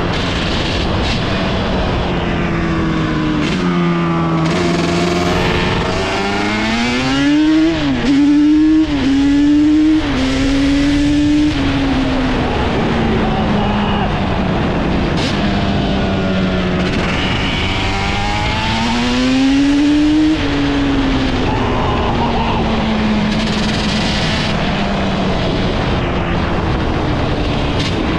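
Yamaha Banshee's twin-cylinder two-stroke engine under riding load. The engine note climbs through a few quick gear changes, falls away, then climbs once more and eases off.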